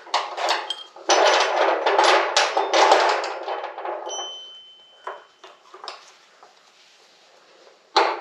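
Metal parts and tools clattering and clinking as they are handled on a workbench, with a dense run of knocks and clinks about one to four seconds in, a brief high ring just after, and then a few scattered single knocks.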